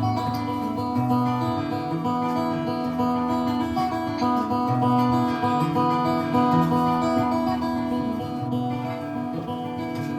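Acoustic guitar playing an instrumental piece, strummed chords over bass notes that change every second or so.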